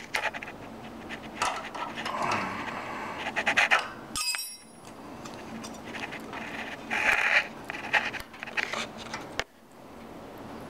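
Small hand wrenches and a feeler gauge clicking and scraping against the adjuster and jam nuts of a Honda GX overhead-valve engine's rocker arm while the valve clearance is set. There is one sharp metallic clink just after four seconds in, and breathing is heard throughout.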